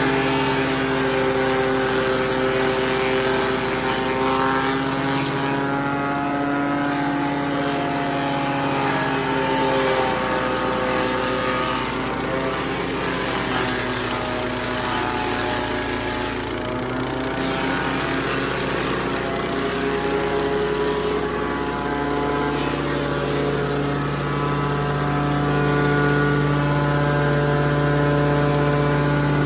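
Grass chopper machine running steadily. Its pitch sags and wavers through the middle and picks up again near the end.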